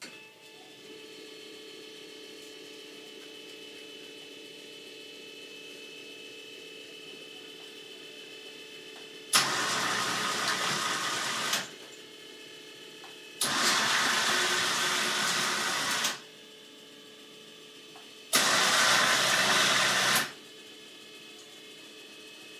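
Electric actuator motor of a homemade ceiling-mounted patient lift running three times, about two seconds each, swinging the lift arm through its range of motion. A faint steady hum carries on between the runs.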